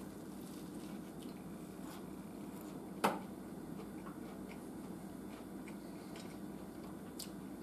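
A person biting into and chewing a slider of crunchy fried bluegill fillet on a bun, with faint scattered crunching clicks over a low steady hum. One sharp click about three seconds in.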